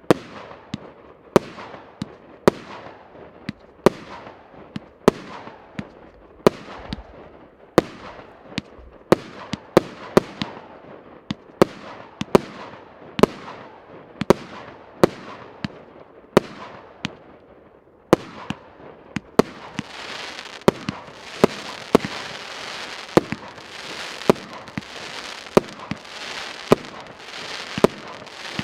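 A 200-shot, 1-inch fireworks cake firing: sharp reports about once a second, each trailing off in a fizzing crackle. From about two-thirds of the way in, a dense steady crackling fills the gaps between the reports.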